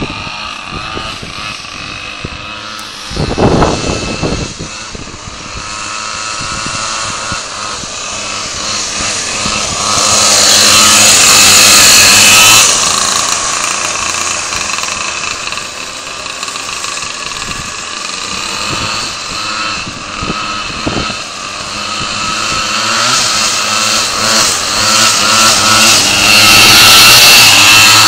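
Twin 49cc pocket-bike engines on a motorized drift trike running and revving up and down, heard from a following car. Loud rushing noise swells over the engine about ten seconds in and again near the end.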